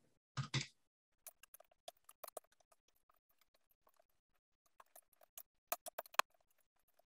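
Computer keyboard typing: faint, scattered key clicks, with a quicker run of louder clicks near the end. Two brief soft sounds come just after the start.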